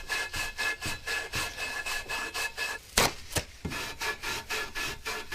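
A hand tool scraping back and forth in quick, even strokes, about five a second. The strokes stop briefly about three seconds in for two sharp knocks, then start again.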